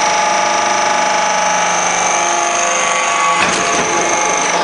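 Hydraulic metal-scrap briquetting press running: a steady whine with several fixed tones from its electric motor and hydraulic pump, with a short knock about three and a half seconds in.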